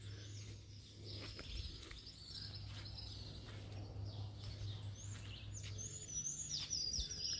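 Songbirds chirping and calling outdoors, scattered short high chirps with a quick run of stepped high notes near the end.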